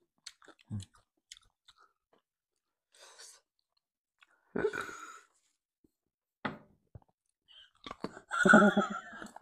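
Close-miked chewing and wet mouth noises of people eating rice and beef curry by hand, with scattered small clicks and smacks. A short burst of laughter comes near the end.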